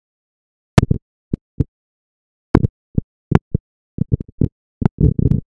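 A series of short clicks and knocks, sparse at first and coming faster near the end, each cut off into dead silence as if by a noise gate.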